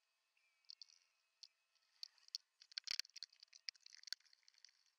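Faint scattered clicks and light taps of small metal hardware and aluminium extrusion being handled on a bench, with a quick run of sharper clicks about three seconds in.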